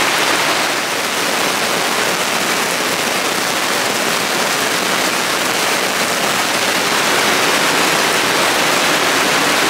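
Heavy rain falling steadily, an even hiss with no breaks, heard from under a boat's canopy.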